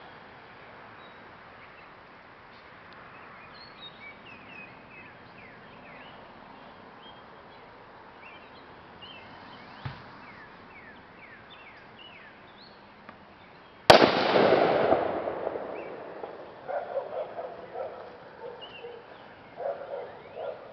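Birds chirping over faint outdoor background. About 14 seconds in, a plastic bottle bomb of Works toilet bowl cleaner and aluminium foil bursts with one loud bang that dies away over a couple of seconds: the bottle has given way to the gas pressure built up by the acid reacting with the aluminium.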